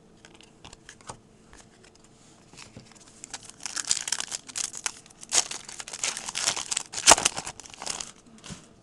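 Foil wrapper of a trading card pack being torn open and crinkled. A few faint rustles come first, then dense crackling starts about three seconds in, with one sharp snap near the end.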